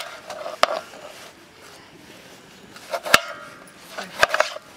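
Kitchen knife slicing tomatoes on a plastic cutting board: a few sharp knocks at irregular intervals as the blade cuts through and strikes the board.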